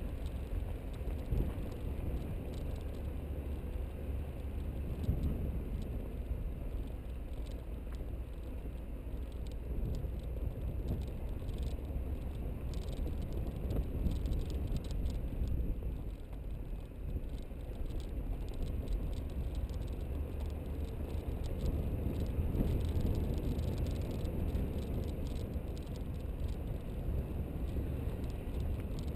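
Car rolling down a rough dirt and gravel track: a steady low rumble from the tyres and body on the uneven surface, with a constant patter of small clicks and rattles from loose stones and the car shaking.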